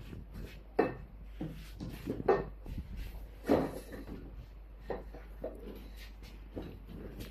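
Irregular knocks and rubbing as the bars of an inflatable water bike are handled and fitted into its plastic frame, the loudest knocks about a second in, at two seconds and at three and a half seconds.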